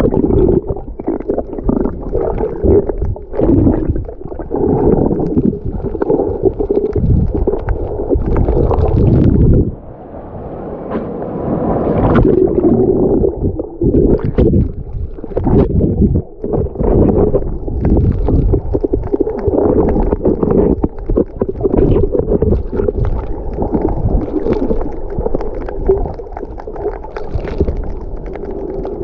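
Muffled sound of a GoPro camera under the sea while snorkeling: a low, rough water rumble and gurgling, with many sharp pops and clicks.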